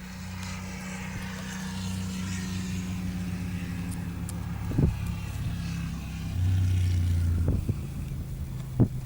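A motor vehicle running, a steady low engine hum that grows louder for a second or so after about six seconds, with a sharp knock about five seconds in and another near the end.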